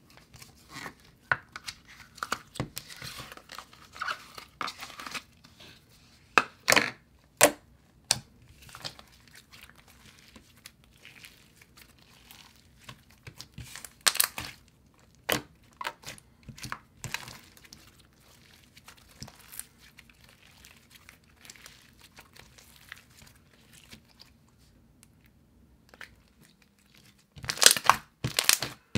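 Soft, thick slime with shredded foam pieces worked by hand, squished, poked and pressed, giving scattered sticky crackles and small clicks. A louder run of crackling comes near the end as the slime is pressed flat.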